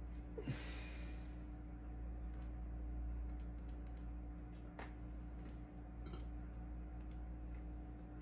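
Faint scattered clicks over a steady low hum. A short hiss and a brief falling squeak come about half a second in.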